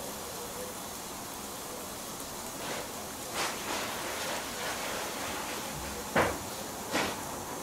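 Mushrooms and onion slices sizzling on a hot tabletop griddle plate: a steady hiss with a few short crackles, the two sharpest pops about six and seven seconds in.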